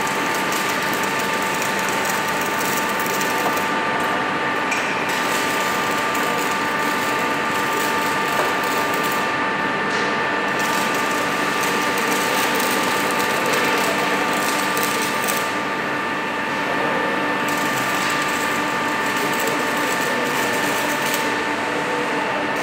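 MIG tack welding on a steel H-beam: the arc's steady, dense crackle, thinning briefly four times, over a steady high machine whine.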